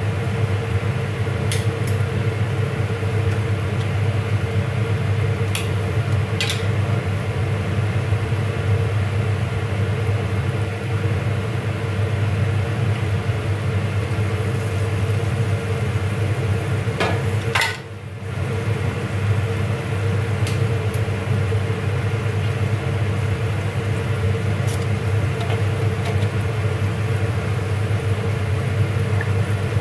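Steady low hum under the sizzle of tomatoes cooking in a steel pan on a gas stove. A few sharp clicks come as tuna is scraped from a can into the pan with a wooden spoon, the loudest just before the sound briefly drops out past the middle.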